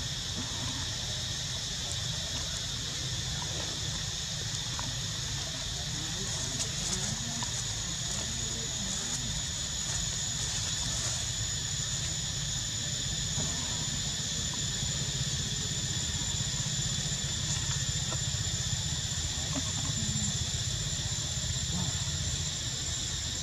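A steady, high-pitched insect drone that holds the same pitch throughout, over a low background rumble.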